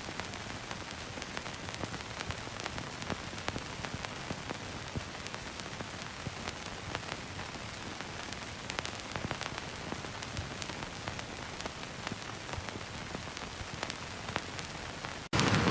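Old film-reel hiss: a steady hiss scattered with small crackles and pops. Near the end it cuts out for an instant and a louder, fuller hiss starts.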